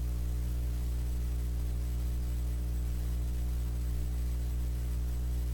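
Steady low electrical mains hum with a row of overtones, unchanging throughout.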